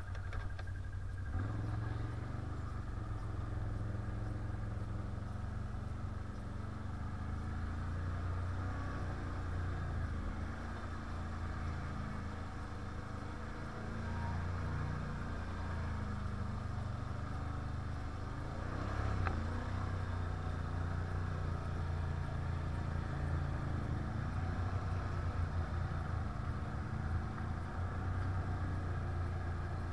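A quad (ATV) engine running while it is ridden, its engine speed rising and falling with the throttle.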